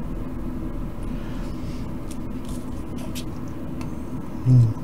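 Steady low background hum, with a few faint light clicks.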